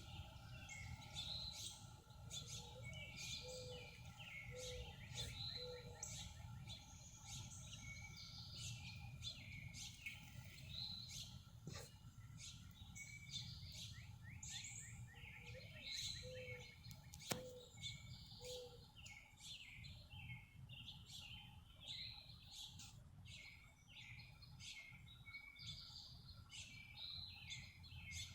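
Faint, continuous chirping and twittering of small songbirds such as finches. A low call of three or four notes sounds twice among them, and there are two sharp clicks.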